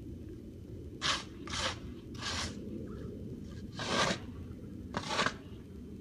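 Snow crunching and scraping in five short, unevenly spaced rasps over a steady low rumble.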